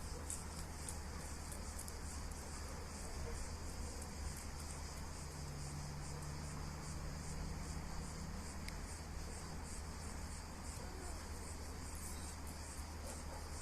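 Insects chirping in a steady, even rhythm, about three high chirps a second, over a low steady hum.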